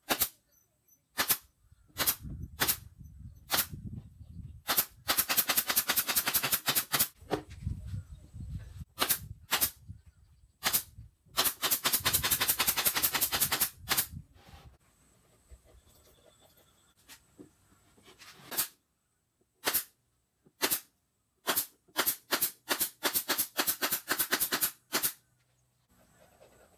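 A series of sharp, loud clicks or snaps, some single and spaced out, others in fast rapid-fire runs, with near silence between them.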